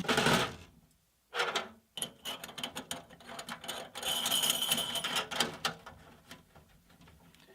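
Zinc-plated steel slip EMT connector being slid out along steel conduit: a run of metal clicks and scraping, with a thin metallic ring during the loudest stretch in the middle.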